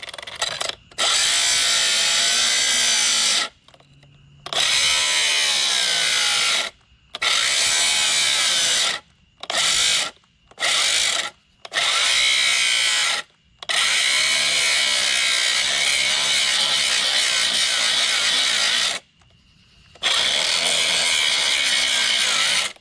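Cordless drill run in repeated bursts of a few seconds each, about eight times, its speed wavering under load as it works a stuck part out of a cast aluminum scrap piece.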